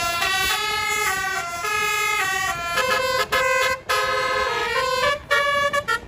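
'Telolet' bus horn playing a tune: a string of held, stepped notes with a few brief breaks between phrases.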